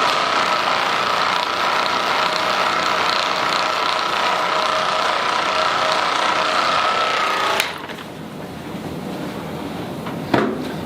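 Handheld percussion massage gun running with a steady high-pitched whine, cutting off abruptly about seven and a half seconds in. A single sharp click follows near the end.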